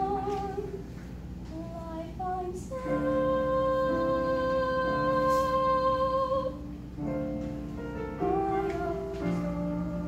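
A girl singing solo over an instrumental accompaniment. She holds one long note from about three seconds in to past six seconds.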